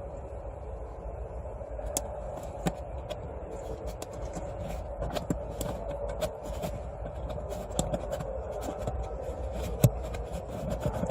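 Irregular sharp clicks and scrapes of plastic parts being handled during a car cabin air filter change, over a steady background hum.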